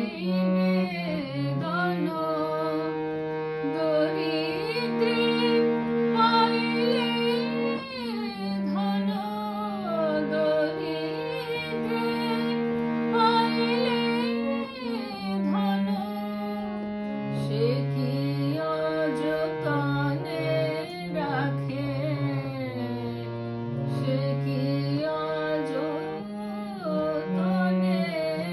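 A woman singing a slow devotional song with ornamented, wavering notes, accompanied by a harmonium holding steady notes and chords underneath.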